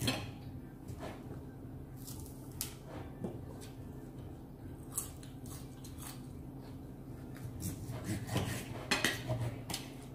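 Cutlery clinking and scraping on dinner plates during a meal: scattered light clicks, busier near the end.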